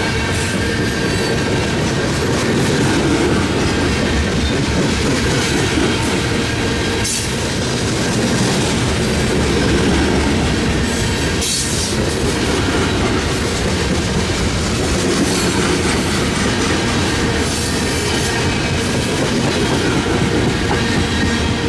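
Coal train's freight cars rolling past: a steady rumble of steel wheels on rail with clickety-clack over the rail joints and a thin steady squeal. It turns briefly sharper twice, about a third of the way in and near the middle.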